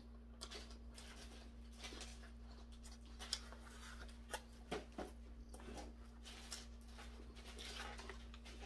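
Faint, irregular mouth clicks and smacks of chewing a steamed dumpling, over a steady low hum.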